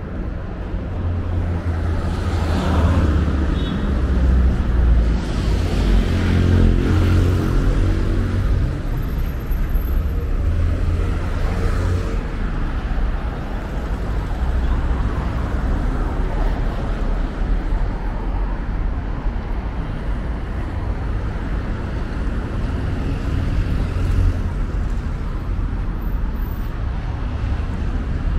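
Road traffic on a city street: cars driving past over a steady low rumble. One vehicle passes closer and louder from about two to nine seconds in.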